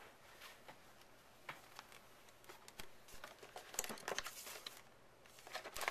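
Faint handling noise from a hand rummaging in a cardboard laptop box and its packed accessories: scattered light clicks, taps and crinkles, busier from about two and a half seconds in.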